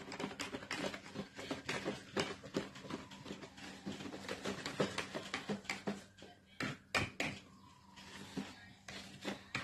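Wire whisk clicking and scraping against a plastic mixing bowl while beating a thick, heavy crêpe batter with the flour just added, in quick irregular ticks, with a few louder knocks about seven seconds in.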